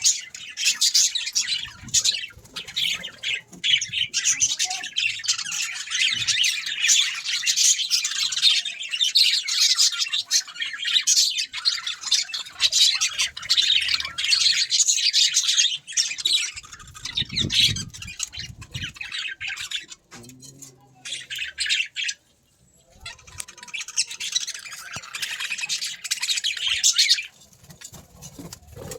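Budgerigars chattering and squawking, a dense, fast stream of high chirps from several birds, breaking off for a few seconds about two-thirds of the way through before starting up again.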